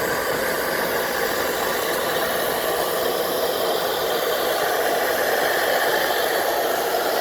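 Portable camp stove burning steadily: a constant rushing hiss with no change in pitch or level.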